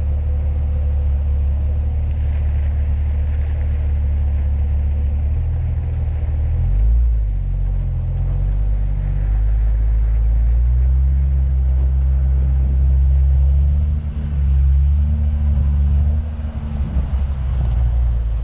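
Off-road 4x4's engine running at low revs with a heavy low rumble; from about five seconds in the revs rise and ease back several times as the vehicle works its way along a technical trail.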